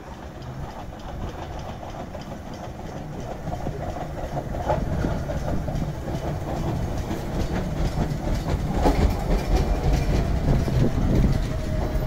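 Iga Railway Iga Line electric train pulling into a station, its wheels clacking over the rail joints and growing louder as it comes alongside. A faint steady whine comes in during the last couple of seconds.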